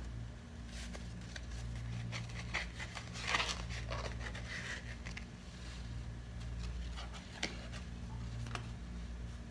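Yarn being wound by hand around a cardboard strip: soft rustling and scraping with small clicks, loudest about three seconds in, over a steady low hum.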